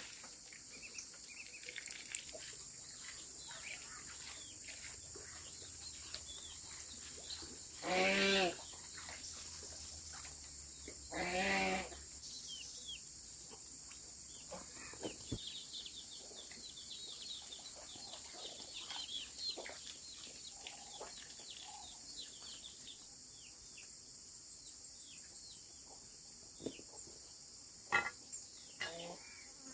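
A farm animal gives two loud, wavering, bleat-like calls a few seconds apart, over a steady high hiss and scattered small clicks and taps.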